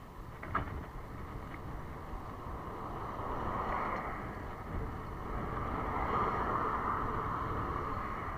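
Wind buffeting the microphone of a camera on a moving road bicycle, over a steady hiss of road noise that grows louder in the second half. A single small click about half a second in.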